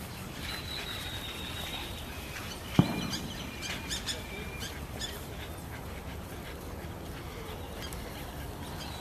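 Birds calling in thin, high, steady notes, with one sharp knock about three seconds in.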